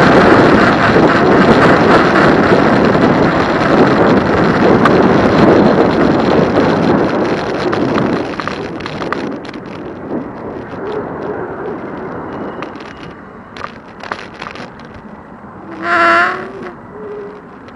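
Wind rushing over the microphone during an e-bike ride. It is loud for the first half, then dies away as the bike slows, leaving scattered clicks and rattles and a brief pitched tone near the end.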